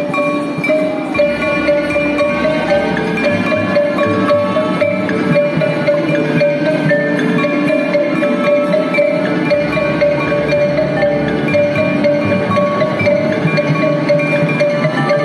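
Marching band music: front-ensemble marimbas and xylophones playing many short struck notes over long held notes from the band.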